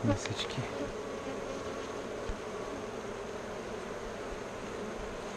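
Honeybees buzzing in a steady hum around an opened hive while its frames are being inspected.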